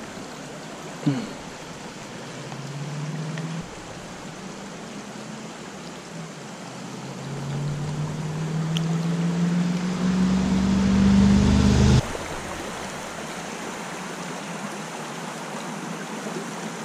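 Small mountain stream rushing steadily over rocks. Over it, a distant engine hum rises in pitch and grows louder for several seconds, then cuts off abruptly about two thirds of the way through.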